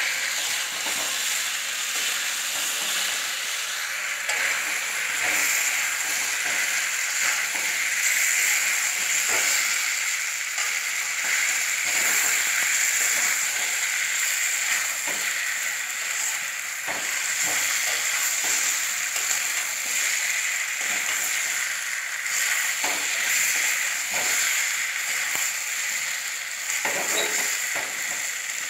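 Chicken and potato curry sizzling in a steel kadai over a gas flame: a steady frying hiss. A metal spatula scrapes and knocks against the pan now and then as the curry is stirred.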